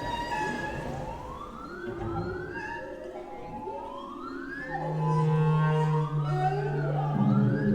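Contemporary chamber music for contrabass clarinet, electric guitar, cello, double bass and recorded ocean sounds: overlapping, siren-like pitch glides that rise and fall. A steady low held note enters about five seconds in, and a second low note joins near the end.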